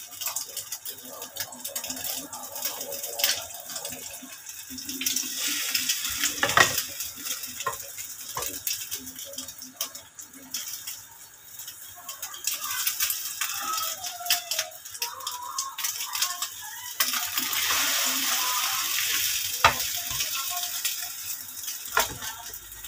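Sardine-and-egg omelette sizzling in hot oil in a nonstick frying pan, with sharp clicks and scrapes of a plastic spatula against the pan, the loudest about six and a half seconds in and again near twenty seconds.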